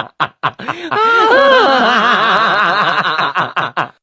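A voice laughing: quick snickering bursts, then a long wavering laugh from about a second in, breaking back into short bursts near the end.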